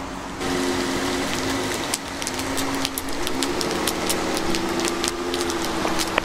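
A Dodge Caravan minivan's engine pulling away, its pitch stepping up as the van accelerates. From about two seconds in, a rapid string of sharp clicks and scrapes runs over it.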